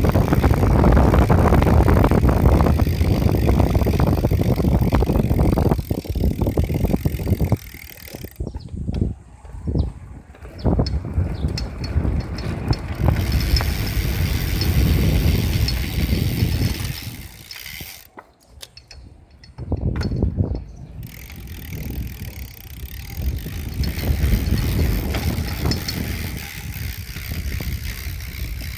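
Sagmit V12 bicycle hub's freehub ratcheting in a fast buzz of clicks as the wheel coasts. The buzz comes and goes in strength and falls away twice, about eight seconds in and again about eighteen seconds in.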